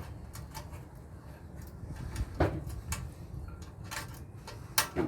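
A few light clicks and knocks of small parts being handled during dismantling, the sharpest near the end, over a steady low hum.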